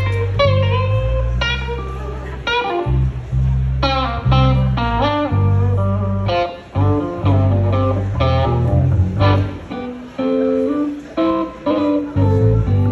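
Live electric blues guitar playing lead lines of picked single notes, some bent in pitch, over low sustained bass notes.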